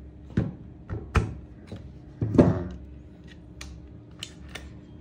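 Metal clicks and knocks from a WE HK416C gas-blowback airsoft rifle as its takedown pin is pushed out and the upper receiver is hinged open from the lower. Three louder knocks come in the first two and a half seconds, the last the loudest with a short ring, followed by several lighter ticks.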